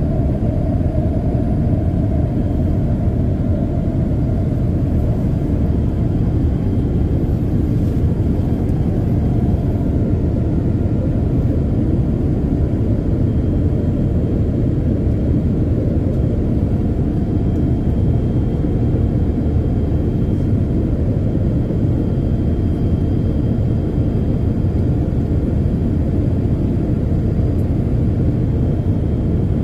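Steady cabin rumble and roar of a Boeing 787-8 in its climb after takeoff, from its two GEnx-1B turbofan engines and the airflow, heard inside the cabin over the wing. A faint higher hum fades out in the first few seconds.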